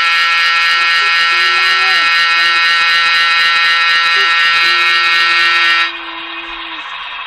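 Sound-decoder air horn of a model Baldwin Centipede diesel locomotive with Paragon 2 DCC sound, played through the model's small speaker: one long, loud blast that cuts off about six seconds in, leaving the quieter running sound of the decoder.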